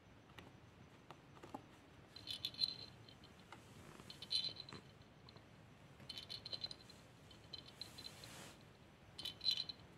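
A small toy rattle jingling in about five short bursts of clicky, high tinkling, as a kitten bats a plastic ball rattle around.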